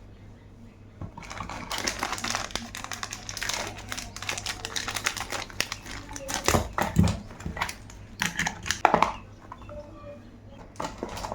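Packaging rustling and crinkling with irregular light clicks and taps as small items are handled, busiest from about a second and a half in, with a few sharper clicks in the second half.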